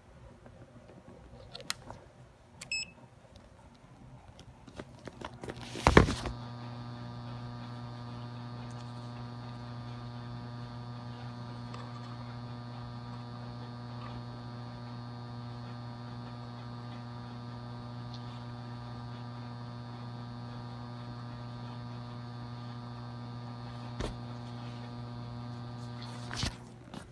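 Magnetic 400 W mercury vapor autotransformer ballast humming steadily at mains-hum pitch while it runs two 150 W high-pressure sodium lamps in series through their warm-up. A loud sharp crackle about six seconds in marks the power coming on, and near the end the hum cuts off with another crackle.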